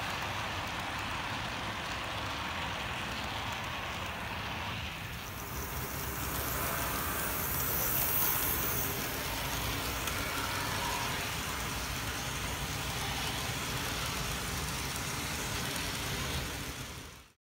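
HO-scale model freight train running on the layout's track: a steady rolling noise of wheels on rail with a low hum. About five seconds in, a hiss enters the high end, strongest around eight seconds. The sound cuts off suddenly just before the end.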